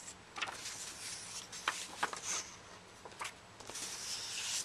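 Sheets of scrapbooking paper and cardstock rustling and sliding against each other as they are leafed through, with a few sharp paper flicks and a louder rustle near the end.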